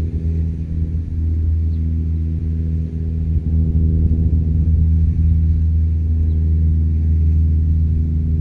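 A motor running steadily at a constant speed: a loud, even, low hum with a stack of steady tones.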